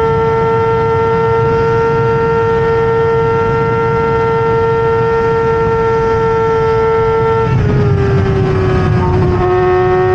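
Stohr WF1 sports racer's BMW S1000RR inline-four engine running at high revs under power, its pitch held nearly steady, over low rushing noise. Late on the pitch dips briefly and unevenly, then settles a little lower and begins to climb again.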